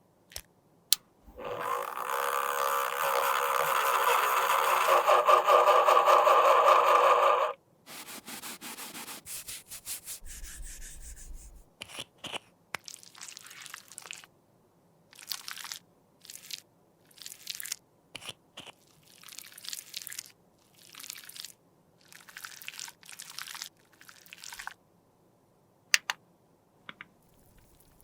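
Broken highlighter powder being worked with a tool: after a click, a loud steady noise lasts about six seconds, then comes a string of short crunching and scraping strokes, each about half a second, in uneven rhythm.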